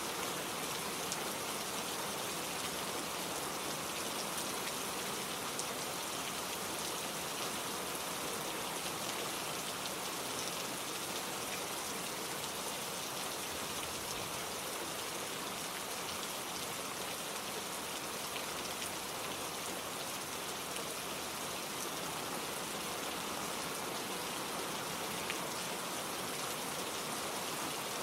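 Steady gentle rain falling, many fine drops pattering on a surface, with no thunder.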